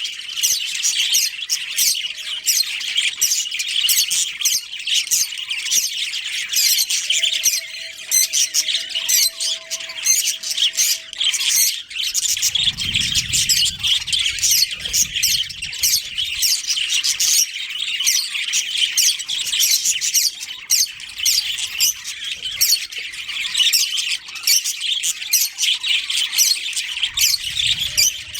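A colony of budgerigars chirping and squawking continuously, many birds overlapping in a dense, busy chatter. A low rumble comes in briefly about halfway through.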